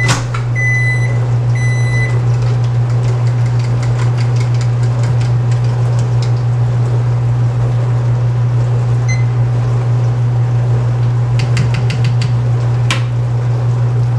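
Microwave oven beeping three times, under a steady low hum that runs throughout. Near the end come a few light clinks as a cup of warmed milk is stirred and checked.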